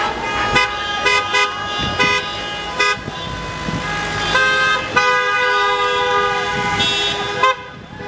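Several car horns honking in traffic: a string of short beeps in the first three seconds, then overlapping long blasts of different pitches from about four and a half seconds in, cutting off suddenly just before the end.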